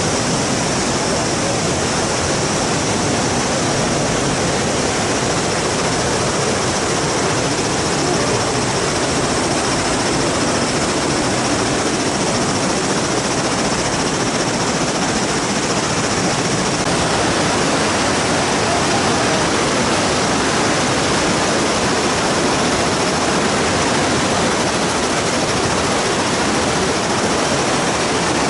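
Steady rushing of river water below a vine suspension bridge, an even, unbroken roar.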